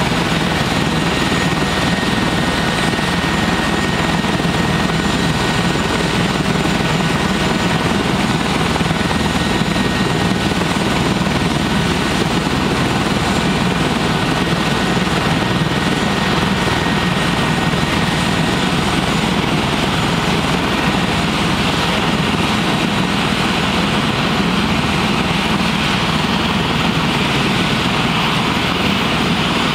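Airbus H145 twin-turbine helicopter running on the ground with its main rotor turning: a steady turbine whine with thin high tones over the low beat of the rotor. The hiss brightens a little near the end.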